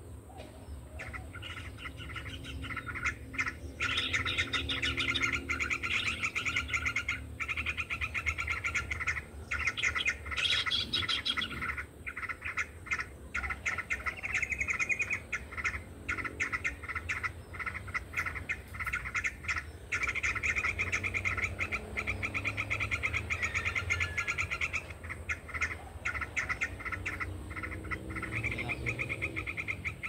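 Small songbirds calling in a dense, rapid twittering trill that starts about a second in and goes on almost without pause, with short breaks. A steady low rumble lies underneath.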